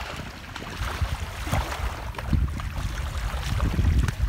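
Wind buffeting the microphone in an uneven low rumble, over splashing from a hooked redfish thrashing in shallow water as it is dragged to the shore.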